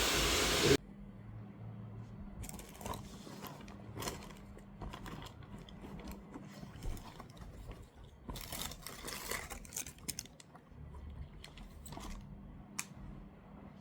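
A loud steady rushing noise cuts off suddenly under a second in, leaving faint scattered clicks, scrapes and knocks of objects being handled over a faint steady low hum.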